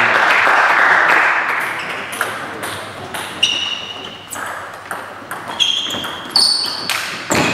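Table tennis balls clicking off bats and table tops in quick, irregular strikes, many with a short high ringing ping, from about two seconds in. Before that, a wash of hall noise fades over the first two seconds.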